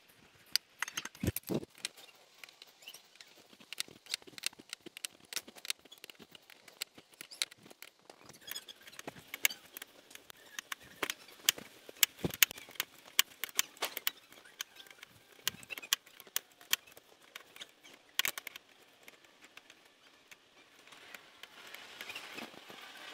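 Ratchet wrench clicking in irregular runs of sharp clicks, with a few louder metal knocks, as the 18 mm nut is worked off the ball stud at the bottom of a car's outer tie rod end.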